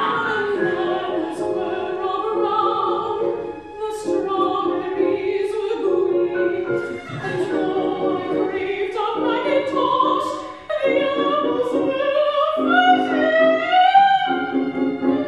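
Soprano singing in operatic style with a wide vibrato, accompanied by grand piano and violin; her line climbs steadily higher over the last few seconds.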